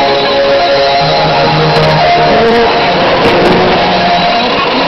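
Music from a 6160 kHz shortwave broadcast playing through a Sony ICF-2001 receiver's speaker, under a steady hiss of static.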